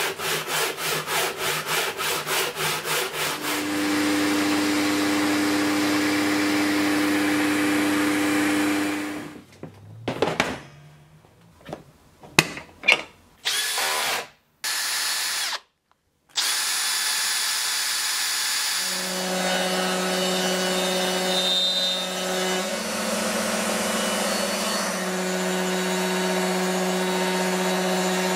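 A handsaw cutting wood in quick even strokes, then a power tool running steadily for several seconds. Midway come clicks and short bursts as a cordless drill's chuck is tightened on a long cutting bit. The drill then runs steadily as the bit cuts a slot in the wood, its pitch rising briefly partway through.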